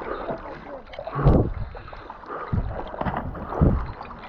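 Water sloshing and lapping around a kayak, with three low splashing surges about a second apart.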